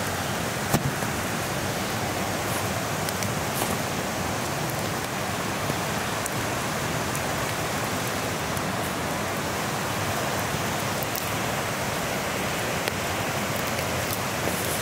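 Steady rush of a shallow creek flowing over stones, with a few sharp crackles from a wood fire burning on embers.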